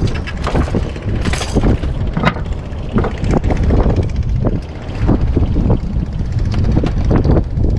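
A fishing boat's diesel engine running steadily, with frequent short knocks and clatter on top.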